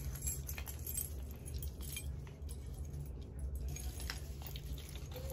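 Metal key rings and clasps of self-defense keychains clinking and jangling as they are handled, in scattered small clicks. A low steady hum runs underneath.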